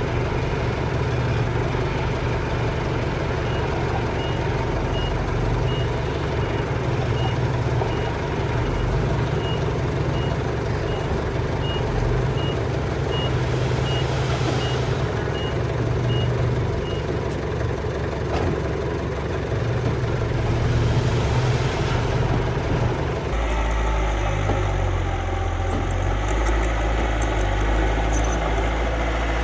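Miniature remote-control dump truck and bulldozer running steadily, with a reversing beeper pulsing about twice a second from a few seconds in until about halfway. Near the end the running turns to a deeper, heavier rumble.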